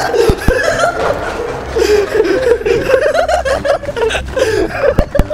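A man laughing in a run of short chuckles, with a few sharp knocks near the start and again near the end.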